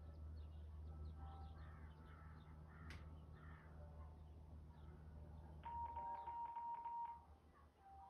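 Faint bird chirps over a low steady hum that fades out about six seconds in, with one steady high note lasting over a second just before.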